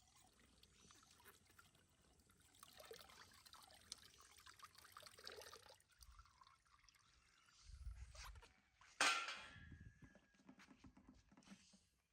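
Faint trickling and splashing of bath water. A low thump comes about eight seconds in, and a sudden sharp noise, the loudest, about a second later.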